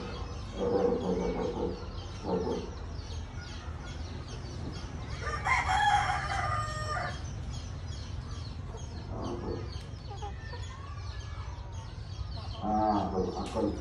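A rooster crows once, a call of about a second and a half starting some five seconds in. Chickens cluck in short low calls at other moments.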